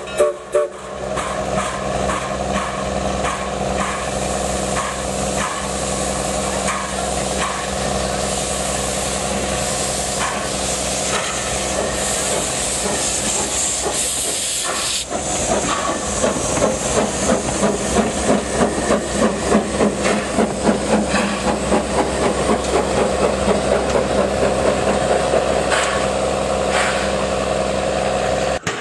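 A 1925 Baldwin narrow-gauge steam locomotive hissing steam, loudest around the middle. From about halfway on, its exhaust chuffs in an even beat of about two a second as it works along under steam.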